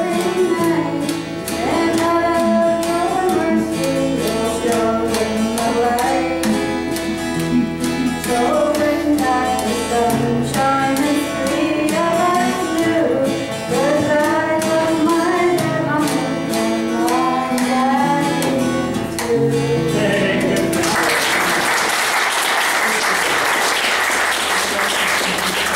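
A man and a woman singing a song to a strummed acoustic guitar; near the end the song stops and the audience applauds.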